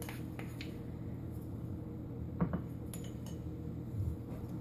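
A spoon clinking lightly against a mixing bowl a few times as ingredients are added, the clearest clink about halfway through, over a low steady room hum.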